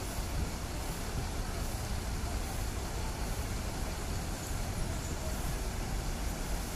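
Coach bus engines running as buses manoeuvre slowly across a terminal yard, a steady low drone.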